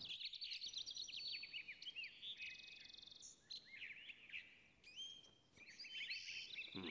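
Faint birdsong ambience: several small birds chirping and twittering in quick, sliding high notes, with a short lull about two-thirds of the way through.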